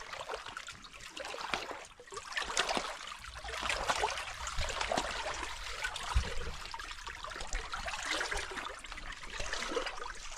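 Seawater lapping and trickling among shoreline rocks, a steady fizzing wash with small splashes, and a single low thump about six seconds in.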